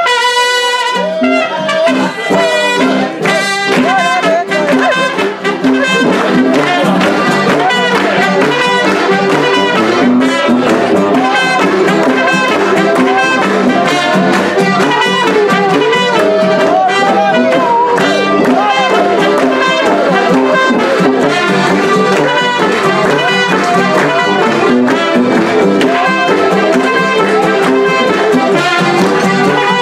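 A live alpine folk band plays: trumpet over guitar, diatonic button accordions and tuba. It opens on a held chord, then runs into a lively tune with a steady beat.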